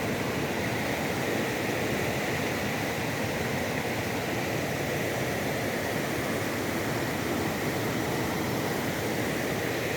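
Waterfall: water rushing steadily over rocks, an even roar with no breaks.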